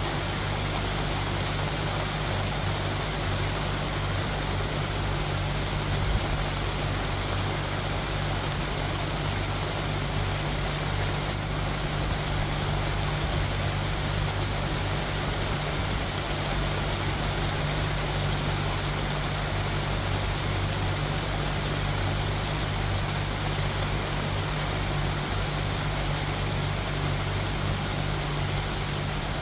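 Steady rain falling, an even hiss, over a constant low rumble.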